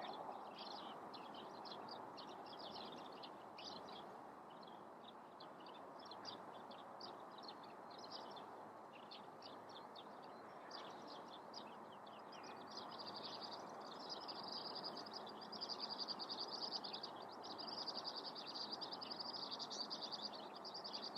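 Small birds chirping in short high notes. About two-thirds of the way in, a louder, fast continuous trilling song takes over. Under it runs a faint steady outdoor hush.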